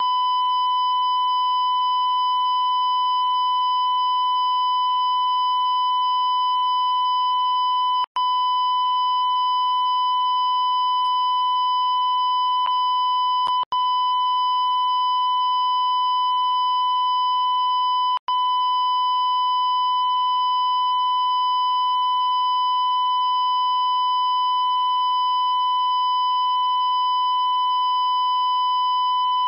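Television broadcast test tone: one steady, unchanging high-pitched tone of the kind a station airs ahead of its sign-on. It cuts out for an instant three times, at about 8, 14 and 18 seconds in.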